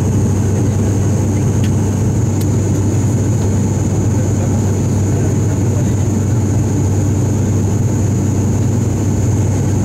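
Steady drone of an ATR 72-500's Pratt & Whitney PW127 turboprops and propellers, heard inside the cabin during the climb after takeoff. A strong, even low hum, with a thin steady high whine above it.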